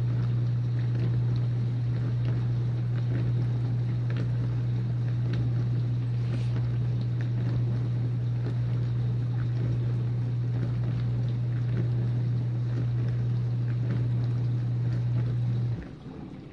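Whirlpool dishwasher running early in its Normal cycle: a steady low pump-motor hum under the rush of water spraying inside the tub. The motor cuts off abruptly near the end.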